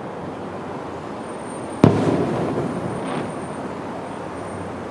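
Aerial fireworks display: one firework shell bursts with a single sharp bang a little under two seconds in, followed by a long rolling echo, over a steady low rumble from the display.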